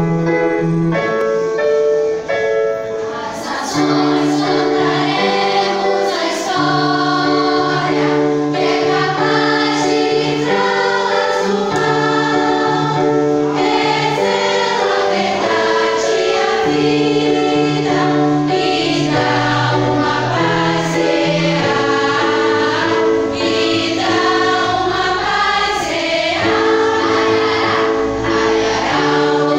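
Girls' choir singing a hymn together, accompanied by an electronic Kurzweil keyboard holding sustained chords.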